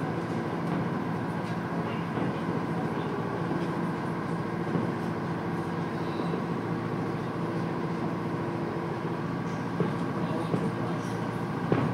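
Steady, even drone of a boat's engine, its hum unchanging, heard from inside the boat's enclosed deck; the fireworks themselves are barely heard, with only a faint knock near the end.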